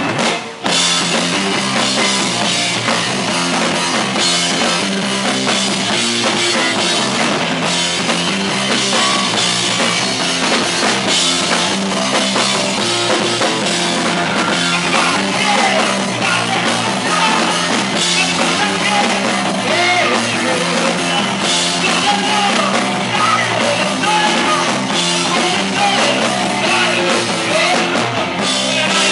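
Rock band playing live with a full drum kit, loud and continuous, with a momentary break just after the start.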